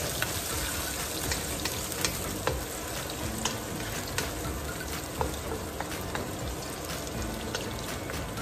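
Chopped onions and ginger sizzling in oil in a nonstick wok, stirred with a wooden spatula that clicks and scrapes against the pan every so often.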